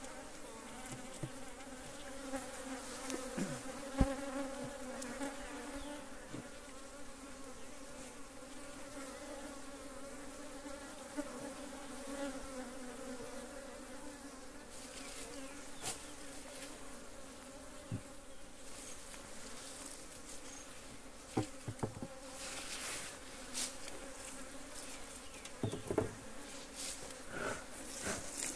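Honeybees buzzing around an open hive, a steady hum, with a few sharp knocks from the wooden hive boxes and frames being handled, the loudest about four seconds in.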